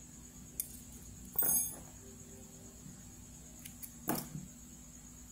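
Metal knitting needles clicking and clinking against each other, with a handful of short, sharp clicks, the loudest about a second and a half in and again near four seconds. A steady faint hum lies underneath.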